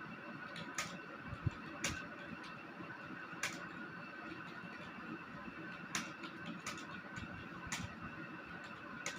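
Computer keyboard keys clicking irregularly as someone types, with a few sharper key strikes standing out, over a steady background hum.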